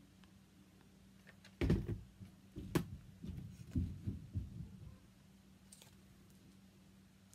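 Irregular clicks and knocks from a cordless hot glue gun being handled and set down while stiff cardstock cutouts are worked by hand, a few seconds of clatter in the middle. A faint steady low hum runs underneath.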